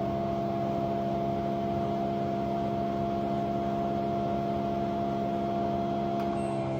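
LG Direct Drive washing machine drum spinning at high speed during the 1400 rpm service-mode spin test: a steady motor whine and hum of several fixed tones, holding at speed.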